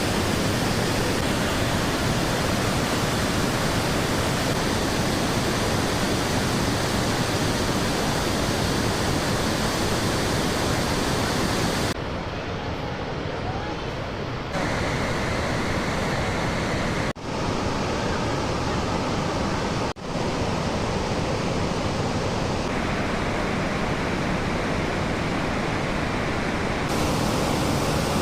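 Massive waterfall at flood flow, the Iguaçu Falls' torrent making a loud, steady rushing noise. Its tone changes abruptly several times, with brief drops at two points.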